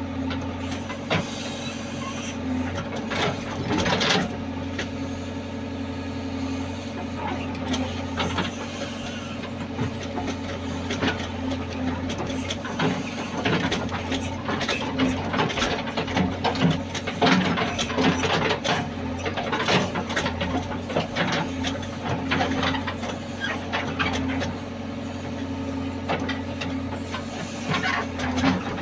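JCB excavator's diesel engine running steadily, with frequent irregular knocks and clanks of the machine at work.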